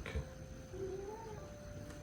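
British Shorthair cat giving one soft, faint meow about a second in, rising in pitch and then falling.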